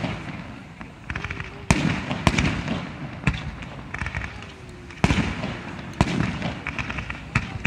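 Fireworks display: about six sharp bangs of bursting shells spread through, with bursts of rapid crackling in between.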